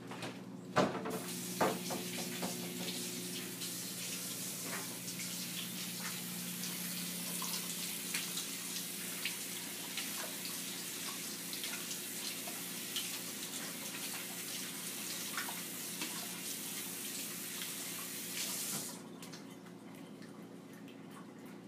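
Kitchen tap running into a sink: turned on about a second in after a couple of knocks, and shut off abruptly near the end.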